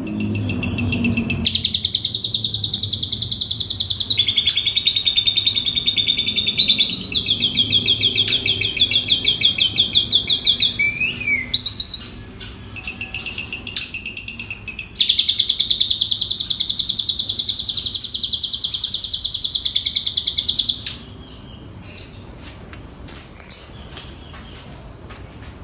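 Jalak suren (pied starling) singing long runs of fast, rapidly repeated chattering notes, switching between different phrases, as in a starling's mimicry song. After a short break comes a loud final run, which stops suddenly about 21 seconds in.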